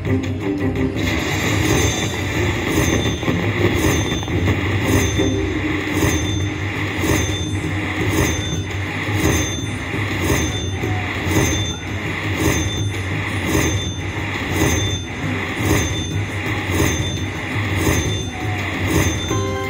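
Bao Zhu Zhao Fu slot machine's win count-up sound as the WINNER! meter tallies the feature award: a looping chime that repeats about every three quarters of a second over steady casino hum.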